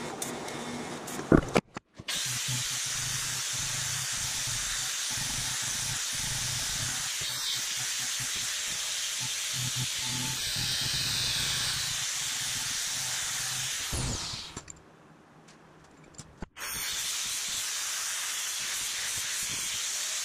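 A short burst of welding crackle, then a handheld angle grinder grinding a metal bracket held in a vise, a steady hissing grind with a low motor hum. It runs in two passes, each ending as the disc spins down with a falling whine, with a short pause between them around the middle.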